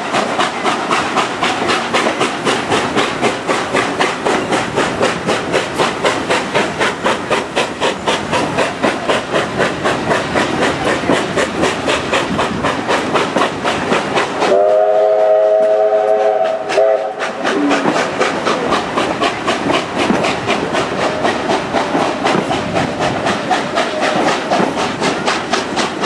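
Steam locomotive 3642, a NSW 36 class, working steadily at speed, heard from an open carriage window: rapid, even exhaust beats over the rumble of the carriages on the rails. About halfway through, its whistle sounds one long blast of about two seconds, several notes at once, and then the beats carry on.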